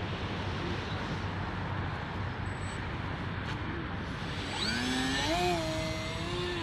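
Electric motor and propeller of an RC trainer plane spooling up with a rising whine about two-thirds of the way in, then holding a steady pitch at launch throttle. Before that, a steady rushing noise, like wind on the microphone.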